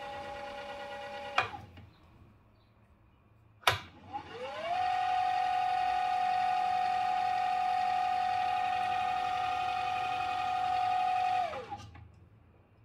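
Electric drive motor of an upgraded Bonex Discovery RS underwater scooter, run on the bench out of the water, whining at a steady pitch. It stops with a click about a second and a half in; a sharp click just before four seconds starts it again, and it spins up with a rising whine, holds steady for about seven seconds, then winds down near the end.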